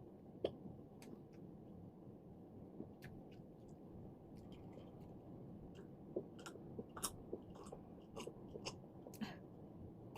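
Faint close-mic eating sounds: soft chewing with small wet mouth clicks, which come thicker in the second half.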